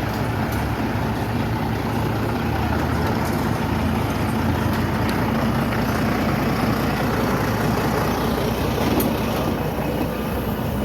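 Heavy vehicle's engine running steadily at low revs, a constant low hum with a few faint clicks over it.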